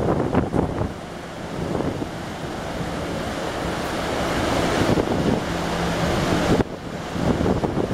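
Wind buffeting the microphone on a moving ferry's deck, over a steady low hum from the ship. The wind noise drops off briefly near the end, then picks up again.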